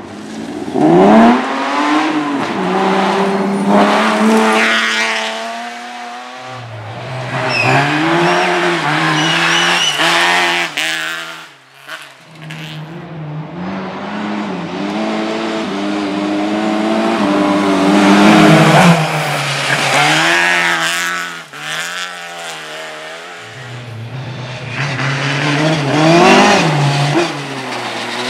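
Rally car engine revving hard under acceleration, its pitch climbing and dropping repeatedly with gear changes and lifts off the throttle, with tyre squeal at times.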